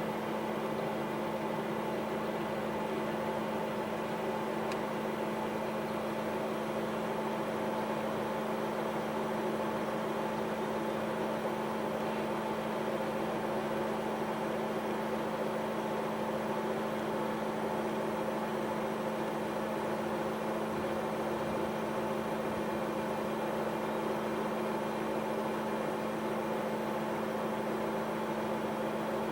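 A steady mechanical hum with a few held tones that do not change in pitch or level. There is no siren wail: the siren is on a silent test.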